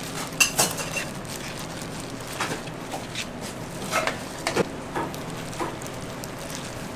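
Raw crab pieces in thick red chili seasoning being hand-mixed in a stainless steel bowl: wet squelching of the crab shells and sauce, with irregular sharp clinks and knocks against the metal bowl.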